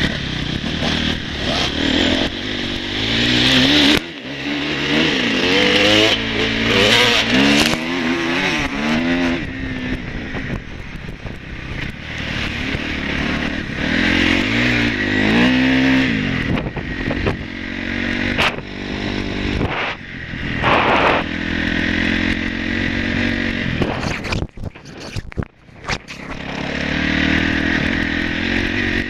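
Dirt bike engine revving up and down through the gears while riding, with water splashing as it ploughs through flooded track. The sound drops out briefly a few times near the end.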